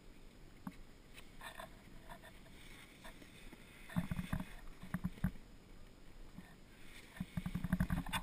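Snowboard scraping and sliding over packed snow, with bursts of low rumbling knocks about halfway through and a denser scrape building near the end as the board starts to run downhill.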